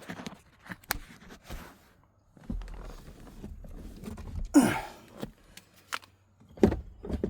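Scattered clicks, knocks and handling noises of a hand tool on a small bolt in a truck cab's shifter console, with a low rumble in the middle and a louder knock-like sound about four and a half seconds in.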